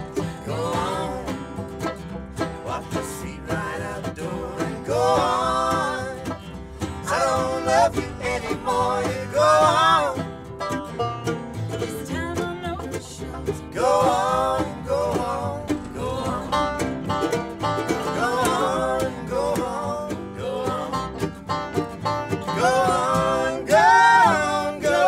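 Acoustic bluegrass string band playing a tune: fiddle, five-string banjo, mandolin, acoustic guitar and upright double bass together, with a bending melody line over the plucked strings.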